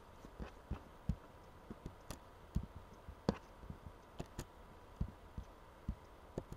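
Irregular soft thumps and a few sharp clicks, about two a second, over a faint steady hum.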